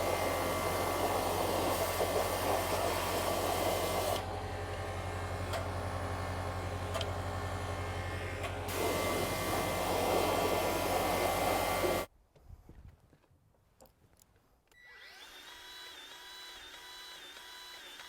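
Milwaukee M18 cordless grease gun motor running steadily for about twelve seconds, louder in some stretches, then stopping suddenly. After a short pause it runs again, more quietly, near the end.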